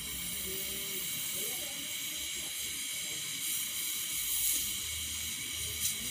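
Oxygen-LPG torch flame hissing steadily while it melts copper wire.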